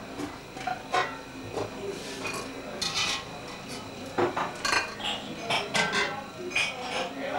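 Kitchen pots and cutlery clinking and knocking as a pot of food is handled at the stove: a string of separate short metallic clinks and clatters.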